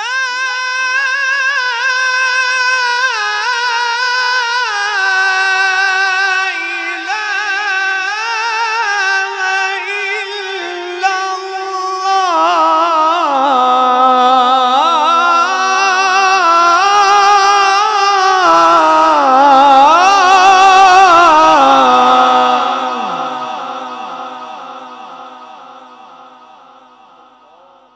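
A male qari's voice drawing out one long, ornamented, wavering melodic phrase of Quran recitation through a microphone and PA. It grows louder toward the end, then stops and fades away slowly over the last few seconds.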